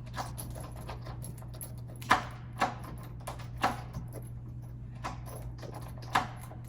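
Door lockset hardware being worked by hand: a scatter of short metallic clicks and rattles, the sharpest about two, two and a half, three and a half and six seconds in, over a steady low hum. The lock is sticking, which the installer puts down to an over-tightened plate.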